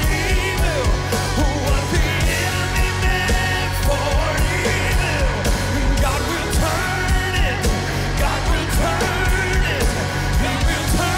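A live church worship band plays with singing over a steady beat.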